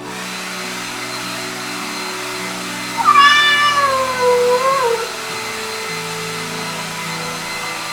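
A domestic cat gives one long meow about three seconds in, lasting about two seconds, its pitch sliding down and then lifting slightly at the end. Soft background music with held notes plays under it.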